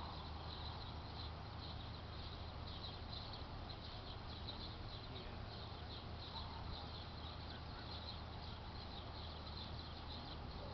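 Outdoor ambience: a rapid, evenly repeated high-pitched chirping over a steady low hum, with a few faint short calls.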